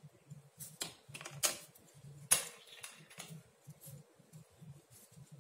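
Knitting needles clicking against each other as stitches are worked by hand, in a one-knit one-purl rib border. About half a dozen sharp, irregular clicks, loudest about two and a half seconds in, over a faint soft rustle of yarn and hands.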